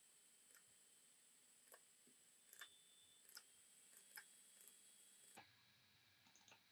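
Near silence with a faint hiss and several soft computer mouse clicks, a few in quick pairs as double-clicks. The hiss drops off about five seconds in.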